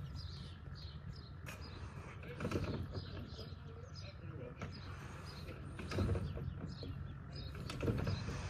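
Birds chirping over a low outdoor rumble, with a few louder dull bursts about two and a half, six and eight seconds in.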